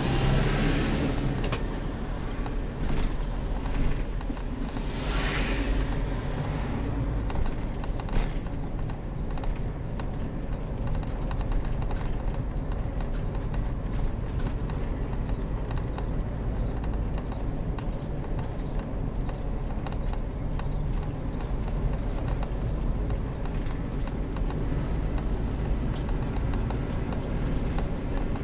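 Heavy motorhome on the move: its engine runs low and steady under a constant patter of small clicks and rattles. Two short hisses come at the start and about five seconds in.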